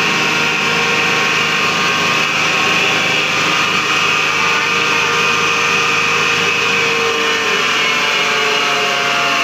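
FFC-45 disc mill running steadily while milling corn grits into flour: a loud, continuous machine noise with a steady high whine.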